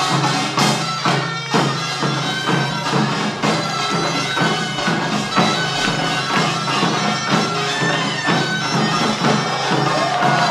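Korean nongak (pungmul) band playing pangut: drums and small gongs beat a steady, driving rhythm under the shrill, sustained melody of a double-reed taepyeongso horn.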